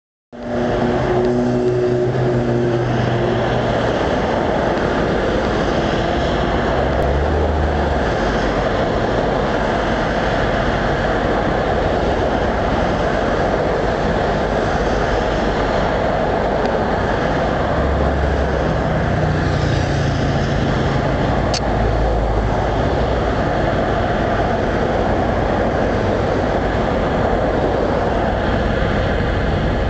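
Bridge road traffic: a steady rush of passing vehicles, with the low engine hum of heavier vehicles going by near the start and again around twenty seconds in.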